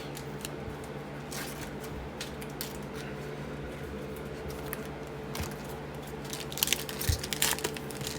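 Trading cards and card packs being handled: small rustles and crinkles, busier near the end, over a steady low hum.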